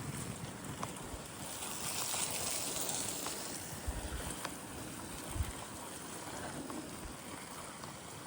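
Wind gusting and buffeting the microphone, with a rushing hiss that swells about two seconds in and low rumbling thumps from gusts on the mic.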